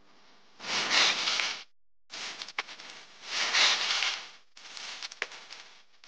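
A small spatula scraping and stirring a wet sand-and-cement mix in a tray: three gritty swishes, each a second or two long, with a couple of sharp clicks among them.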